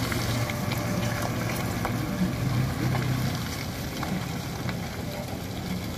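Engine of a small pickup truck loaded with concrete blocks running as it crawls through deep mud: a steady low drone with a few faint clicks.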